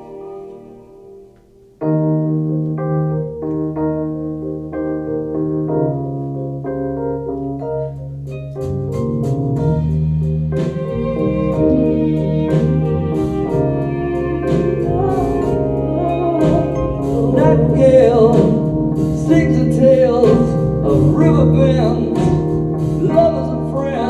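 Live band music: after a fading chord, sustained organ-like chords on a Roland RD-700SX stage keyboard come in loudly about two seconds in. Crisp percussive hits join about eight seconds in, and a wavering bowed violin line rises over the chords as the music builds.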